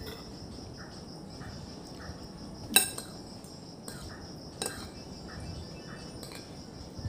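A metal spoon clinking against a plate a few times during eating, the sharpest clink a little under three seconds in. A faint steady high-pitched whine runs underneath.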